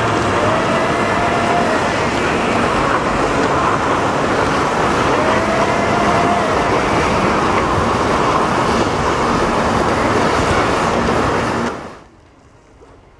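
Steady, loud rushing hiss of outdoor ambient noise, with a faint low hum under it, cutting off abruptly near the end.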